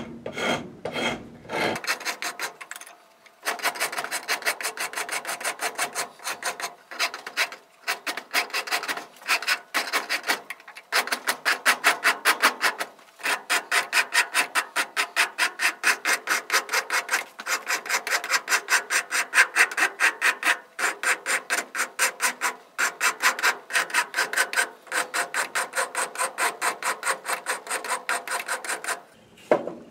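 Hand rasp shaping a wooden drawknife handle clamped in a vise: a quick, even rhythm of rasping strokes, about three a second, with a couple of short pauses.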